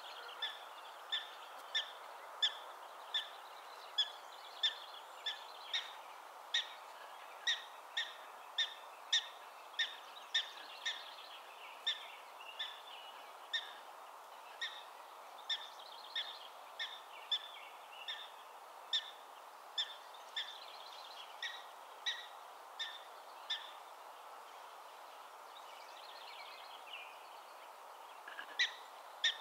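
Black-tailed prairie dog barking again and again: short, sharp chirping calls about one and a half a second, of the kind the colony gives as an alarm. The calls stop about three-quarters of the way through and a few more come near the end, over a steady background hiss.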